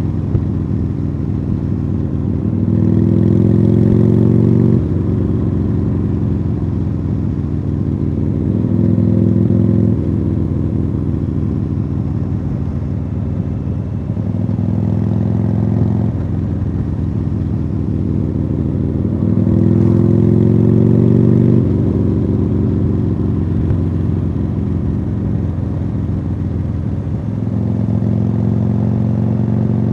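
Harley-Davidson Sportster Iron 883's air-cooled V-twin running through aftermarket Khrome Werks Tapered exhausts while riding. Its pitch climbs under throttle several times and drops off sharply each time, about five times.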